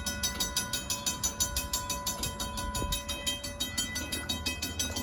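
Old wigwag railroad crossing signal running on its 12-volt supply: its mechanism makes a rapid, even clicking with a steady faint whine underneath. The signal's mechanical bell does not work.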